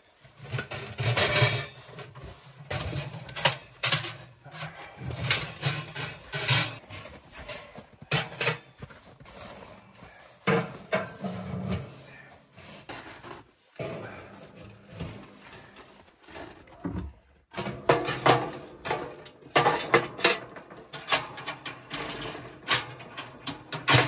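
Irregular metallic clanks and knocks of a stainless steel WinnerWell wood stove and its stovepipe sections being handled and fitted together, with a brief lull partway through.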